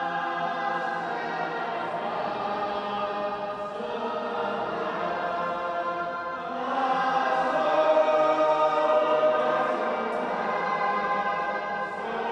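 A choir singing a fusion of shape-note hymn singing and Sufi nasheed in long held chords, swelling louder about halfway through.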